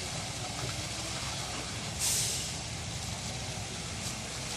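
Heavy machinery running steadily at a construction site, with one short loud hiss about two seconds in.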